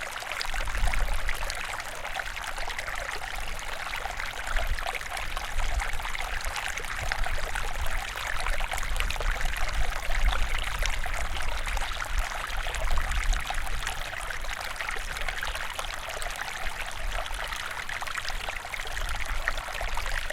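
River water flowing steadily over rocks, a continuous babbling rush with constant small splashes and gurgles.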